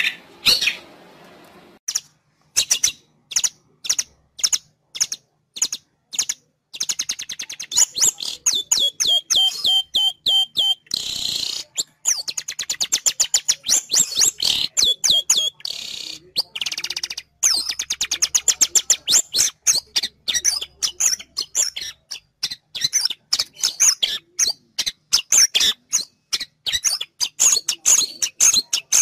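Long-tailed shrike (cendet) calls played as a bird-trapping lure: rapid runs of sharp, repeated chirps broken by short pauses, with a harsh rasping note about eleven seconds in.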